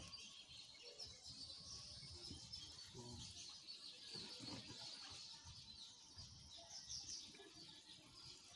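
Quiet background of faint, high-pitched chirping of small birds, going on continuously.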